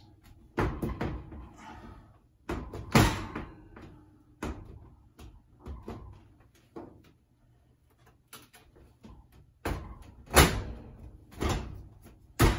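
Samsung gas range's oven door being worked onto its hinges: about a dozen irregular clunks and rattles as the metal-and-glass door knocks against the hinge arms, not yet seated, the loudest about three seconds in and about ten seconds in.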